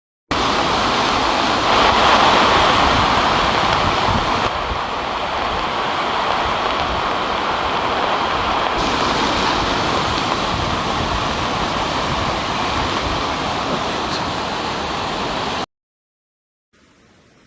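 Floodwater rushing: a loud, steady noise that shifts a little twice and cuts off suddenly near the end.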